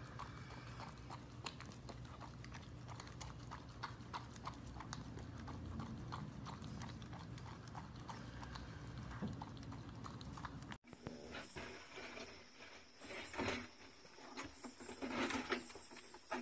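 Labrador puppy licking whipped cream from a small plastic cup: a quick, irregular run of faint wet clicks. About eleven seconds in it cuts to scattered scuffles and knocks as two dogs nose a plastic toy on a wooden deck.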